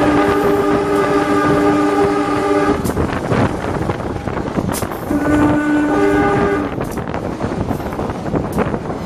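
The horn of CC 203-18, an Indonesian diesel-electric locomotive, sounds a steady multi-tone chord that stops about three seconds in, then a second shorter blast a couple of seconds later. Between and after the blasts the moving train rumbles, with a quick clatter of wheels over the rails.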